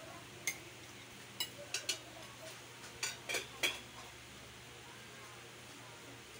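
A spoon clinking and scraping against a plate as food is scooped up: about seven sharp clinks in the first four seconds, then only a faint steady hum.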